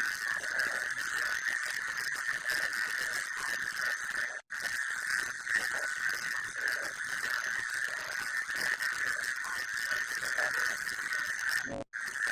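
Emergency alert data tones, the digital header burst of an EAS-style alarm: a harsh, raspy buzzing screech held steady, cutting out for an instant about four and a half seconds in and again near the end.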